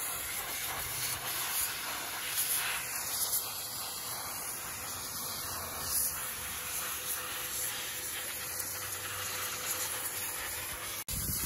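Pressure washer jet spraying greasy engine parts, the lifter guide trays beside an oil pan: a steady hiss of high-pressure water spray, broken by a momentary cut near the end.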